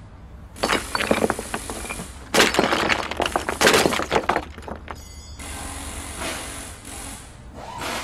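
Sound effect of a stone wall cracking and breaking apart: sharp cracks about half a second in, then a louder crumbling crash for about two seconds, a brief ringing tone, and a steady hiss.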